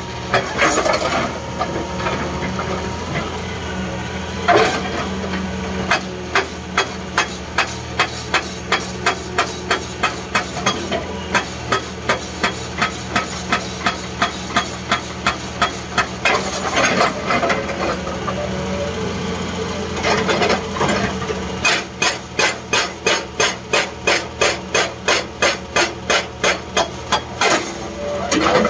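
Hydraulic rock breaker on an excavator hammering a boulder: a rapid, even run of blows, about two to three a second, with short pauses between bursts. The excavator's diesel engine drones steadily underneath, heard from inside the cab.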